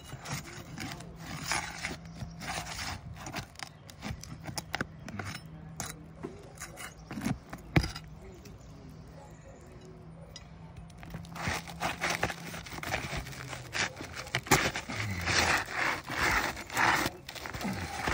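Asphalt roof shingles scraping and rubbing as a flat pry bar is worked under them to break their seal strips and lift them, in a brittleness test of aged shingles. Irregular scrapes and clicks, busier in the second half, with one sharp knock about eight seconds in.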